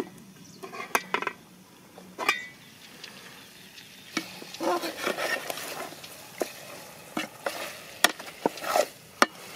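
Aluminium cooking pot and lid clinking and knocking as the lid is handled and lifted off, then a metal ladle scraping and stirring through thick chicken curry in the pot, with sharp metal clinks near the end.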